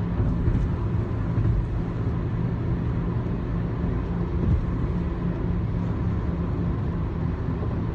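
Steady road and engine noise inside a moving car's cabin: an even low drone with a faint steady hum.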